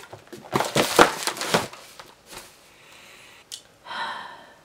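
Cardboard snack box and the wrapped snack packets inside it being handled and set down: a quick run of rustles and taps about half a second in, lasting about a second. Near the end, a short breathy sigh.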